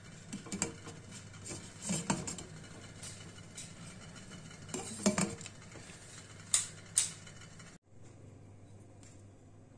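Kitchenware being handled: a glass pot lid and a steel pot clinking and knocking against each other several times, as separate sharp strikes.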